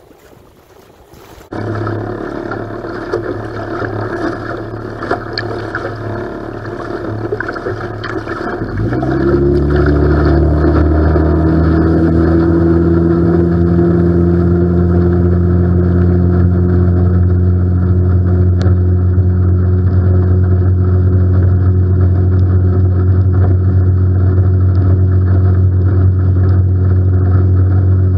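Tiller outboard motor on a small skiff running under way, with water rushing past the hull. About nine seconds in it is throttled up: its pitch rises, then it settles into a steady, louder run at speed.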